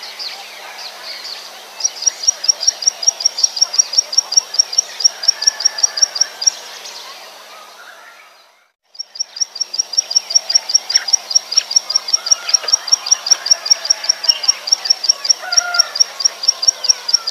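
Plain prinia singing a fast run of sharp, high repeated notes, about four or five a second, over faint background birds and insects. The run starts about two seconds in, fades out around the middle to a moment of near silence, then starts again.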